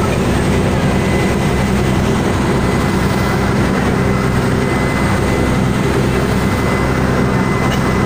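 A passenger launch's engine running steadily with a low drone, mixed with the rush of the churning propeller wake.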